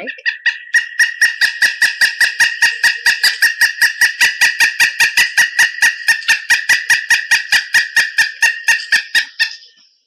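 Pileated woodpecker calling: a long, even run of loud, rapid notes, about six a second, that stops near the end.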